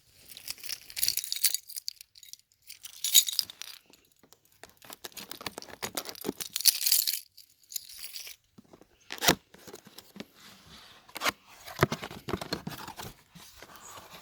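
Packaging being opened by hand: tearing and crinkling in several bursts, then a couple of sharp knocks and more rustling.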